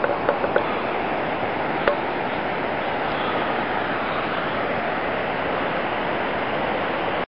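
Steady rushing noise with a few short sharp clicks in the first second and another about two seconds in.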